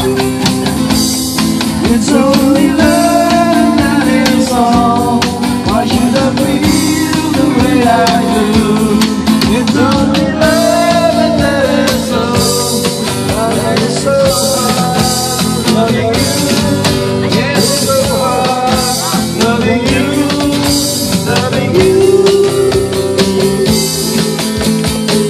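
Live amplified music through a PA speaker: a man sings into a handheld microphone over a strummed acoustic guitar and a steady beat from an electronic drum pad played with sticks.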